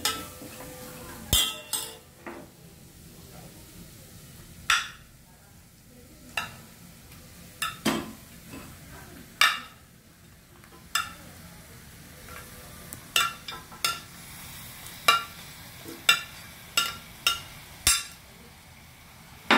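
Raw chicken pieces going into a stainless-steel pot of frying onion masala: a dozen or more separate clinks and knocks of the glass bowl and spoon against the steel pot, spaced irregularly, over a faint sizzle.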